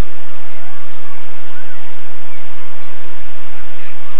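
Loud, steady rushing noise of wind and surf on a camcorder microphone, gusting in the low end, with a few faint distant shouts of beachgoers now and then.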